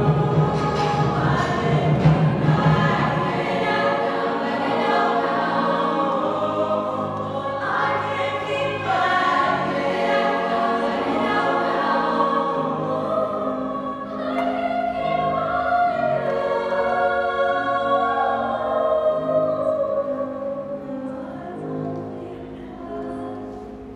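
Mixed-voice choir of men and women singing sustained chords, growing softer over the last few seconds.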